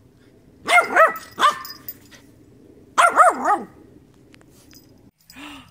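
Young soft-coated wheaten terrier puppy barking: a quick run of three barks about a second in, then another short run of barks about three seconds in.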